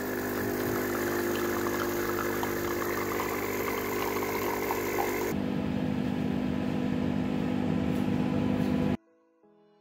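Automatic espresso machine's pump running steadily as coffee pours into a mug. About five seconds in, it gives way to a lower, steady hum of a microwave oven running, which cuts off suddenly near the end and leaves faint music.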